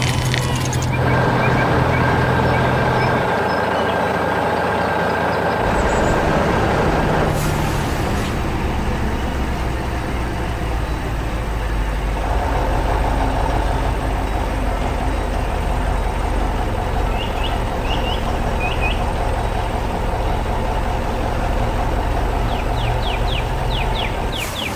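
Heavy construction machinery engine sound effects, an excavator or dump truck diesel running steadily for the whole stretch, its tone shifting a few times as the machine works.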